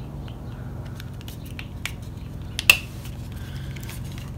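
Small clicks and rustles of a cardboard lipstick box being handled and opened, with one sharper click about two and a half seconds in, over a steady low hum.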